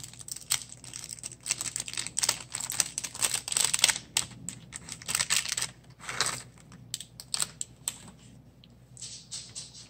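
A small plastic packet crinkling and rustling in the hands, with rapid light clicking and rattling of small plastic flower sequins. The clicking is dense for the first six seconds or so, then thins to a few scattered clicks.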